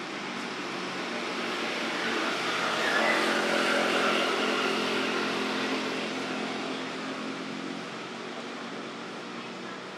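A motor vehicle passing by, its engine and road noise swelling to loudest about three to four seconds in, then fading away.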